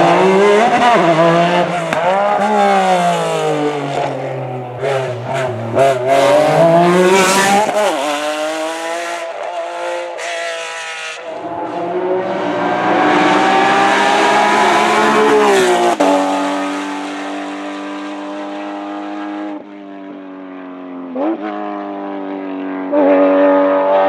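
Race Porsche 911 flat-six engine at full throttle, its pitch climbing and dropping sharply at each gear change as it accelerates hard up the road. The note holds steadier and quieter as the car pulls away, then a loud engine note comes in again near the end.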